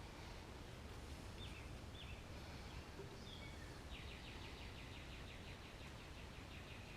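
Faint steady background rumble with a bird chirping a few times, then singing a rapid trill from about four seconds in.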